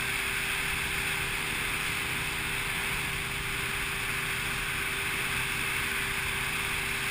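Motorboat underway at a steady speed: a constant engine hum with one steady tone, mixed with the rush of wind and water past the hull.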